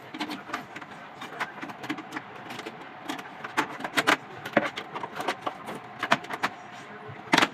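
Irregular light clicks and knocks of hard objects being handled, with a louder knock near the end.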